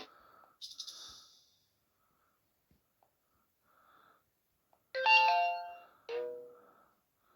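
Notification tones played through the speaker of a Motorola Droid Turbo, previewed one after another. A brief high chime comes under a second in, and two ringing chimes follow about five and six seconds in, each fading out.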